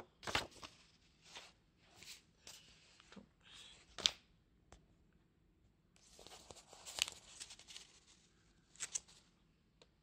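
Paper rustling and scraping as a paper key-card folder is handled: a run of short, faint rustles, the sharpest about four seconds in, then a longer rustle from about six to eight seconds.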